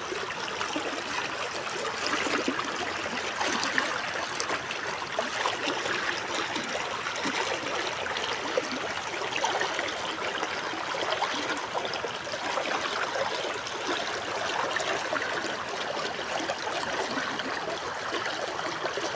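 River water babbling steadily over its bed, a constant even rush with fine splashing flickers.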